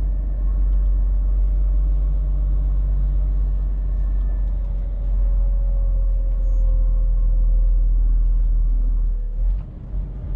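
Steady low rumble of a Scania truck driving slowly, with a faint engine tone that sinks slightly in pitch midway. The rumble dips briefly near the end.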